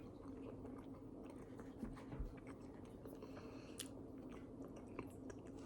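Faint close-up chewing of a mouthful of baked potato, with small wet mouth clicks, over a steady low room hum.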